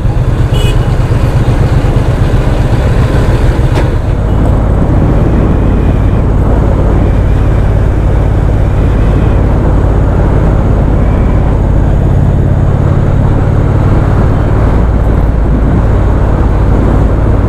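Motorcycle on the move at a steady cruising speed, the engine running evenly under a constant loud low rumble, with no change in revs.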